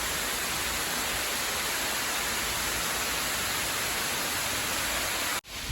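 Steady rushing of falling water, an even hiss with no change in level, cut off abruptly near the end.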